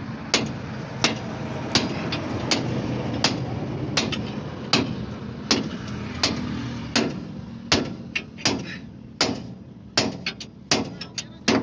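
Hammer blows on the steel spring hanger and shackle of a truck's rear leaf spring while a new main leaf spring and bushes are fitted. There is a steady rhythm of roughly one and a half blows a second, and the blows turn quicker and uneven about two-thirds of the way through.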